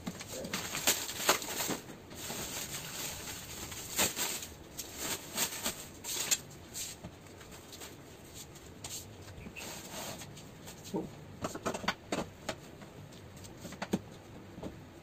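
Plastic packaging rustling and crinkling as it is pulled off a wooden shipping crate, followed by scattered knocks and scrapes as the crate's wooden slats are worked loose with a hand tool.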